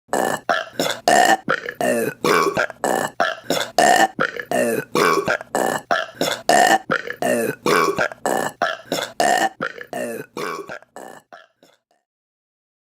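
A rapid string of short burps, about three a second, in a pattern that seems to repeat every couple of seconds. It fades out about eleven seconds in.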